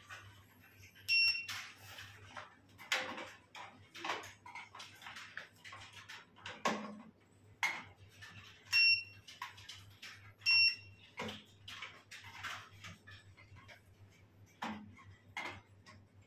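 Three short, high electronic beeps from a hydrafacial machine's control unit, one about a second in and two close together near the middle. Between them come light clicks and clatter of the handpieces being handled in their holder, over a faint low hum.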